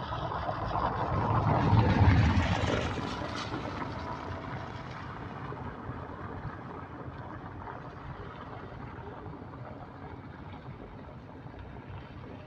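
A motor vehicle passing close by, growing louder to a peak about two seconds in and then fading away into the steady harbour background.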